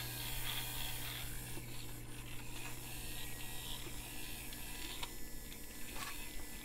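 A small robot-car kit being handled: soft rubbing and a few light clicks of plastic and circuit board in the hands, over a faint steady hum.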